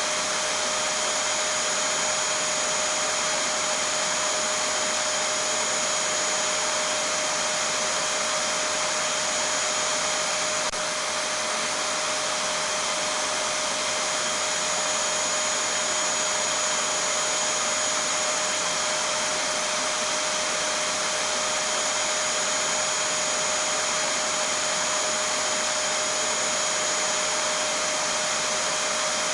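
Vacuum cleaner running steadily: an even rushing hiss with a few steady whining tones on top, the same all through.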